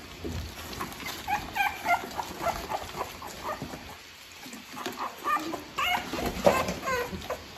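Three-week-old American Bully puppies whimpering in short, high squeaks, in two spells with a lull about four seconds in.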